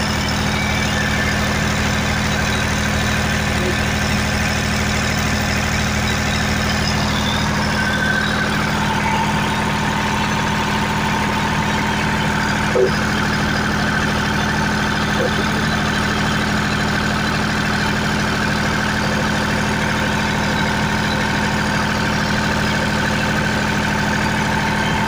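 Perkins diesel engine of a 40 kVA generator set running steadily at constant speed: an even hum with a faint whine above it, heard with the soundproof canopy's door open. A single small click about halfway through.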